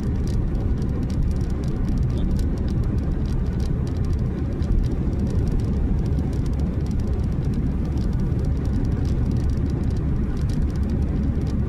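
Steady low rumble of a car's tyres and engine heard from inside the cabin at highway speed, with light scattered ticks above it.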